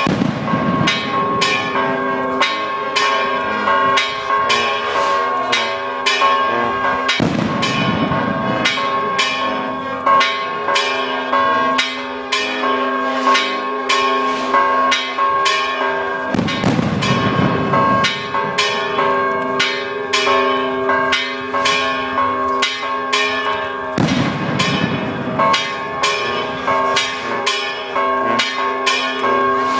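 Church bells pealed from the tower, struck rapidly a few times a second with their ringing tones overlapping in a continuous loud clangour.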